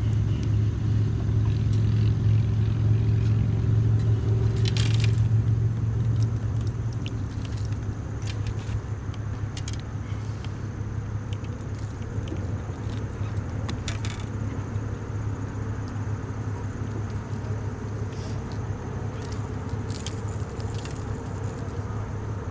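Boat motor running with a steady low hum that eases down about six seconds in, with a few light clicks and knocks over it.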